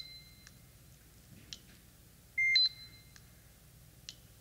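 LPI LT-2D3D laser templator giving one short, steady beep about a third of a second long, a little over halfway through. The beep sounds while the laser shoots a point, taking its 50 readings to the wall. A few faint clicks fall in between.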